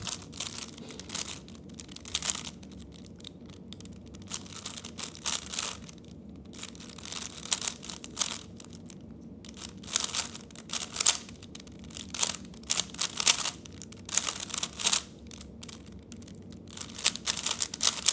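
3x3 speedcube being turned fast during a solve: runs of rapid plastic clicking and clacking from the layers turning, broken by short pauses.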